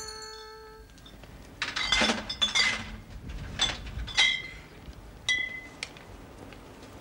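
Glass milk bottles clinking as they are handled: a string of sharp clinks with a brief ringing tone, in a cluster about two seconds in and then singly over the next few seconds.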